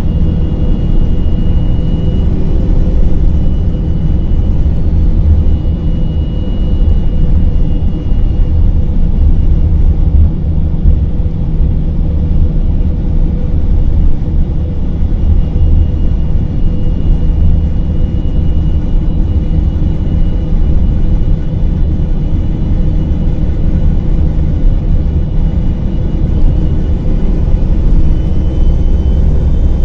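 Inside a 2000 Gillig Phantom transit bus cruising at highway speed: its Cummins ISM diesel and Voith four-speed automatic run steadily, giving a low rumble under the road noise. A faint high whine comes and goes on top.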